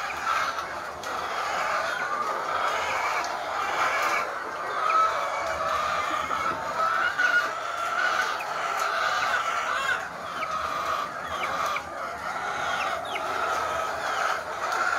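A houseful of caged laying hens clucking together, many overlapping calls in a steady chorus.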